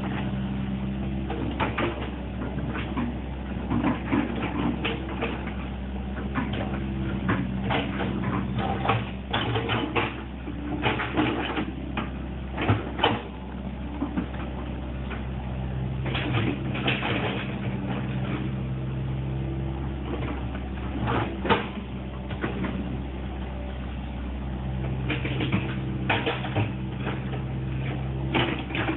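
Excavator running steadily with a low diesel hum, under frequent sharp clunks and knocks as it works.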